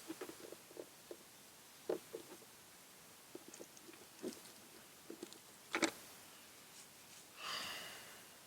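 Scattered light clicks and taps of a screwdriver working at the plastic interior door-light housing, with a few sharper clicks. A long breathy exhale near the end.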